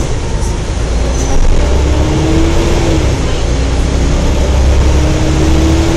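Wright Eclipse Gemini double-decker bus running under way, its engine rumbling beneath a loud whine, the 'hoover', that rises in pitch about a second and a half in, drops away, then comes back and holds steady near the end.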